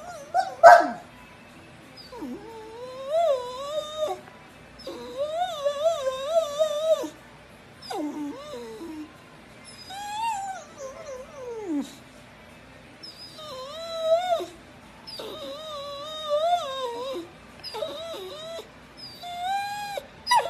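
Brindle boxer dog howling and whining in a string of about nine long, wavering calls that bend up and down in pitch, several sliding downward at the end. A short, sharp yelp near the start is the loudest sound.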